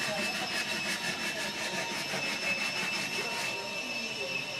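A power tool running with a steady high whine, with an even rapid ticking over it that stops about three and a half seconds in.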